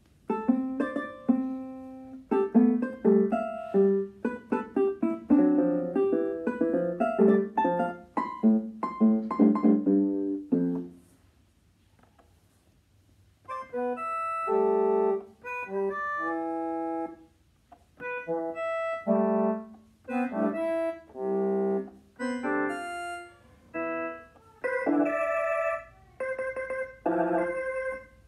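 A small electronic keyboard being played: about ten seconds of quick, piano-like notes, a pause of a couple of seconds, then short phrases of held notes and chords that each hold steady and stop abruptly, with brief gaps between them.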